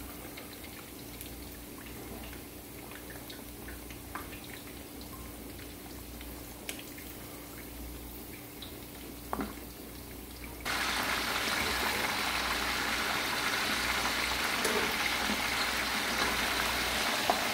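Pork hocks deep-frying in oil: a faint crackle with a few small pops, then about ten seconds in it turns abruptly to a loud, steady sizzle as a batch of raw pork hocks fries.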